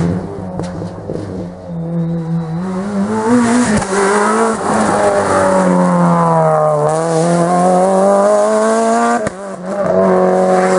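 Rally car engine at high revs, its pitch dropping to a low point about two thirds through and then climbing again as it accelerates away. Near the end the sound breaks off sharply and another engine takes over at steady revs.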